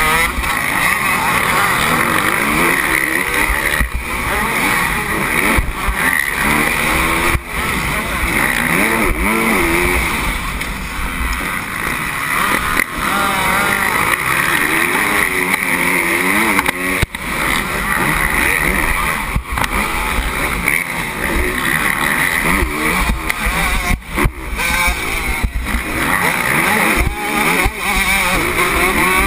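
Motocross bike engine heard from onboard at race pace, revving up and down again and again through corners and straights, with other dirt bikes running close by. Heavy wind rumble on the camera microphone.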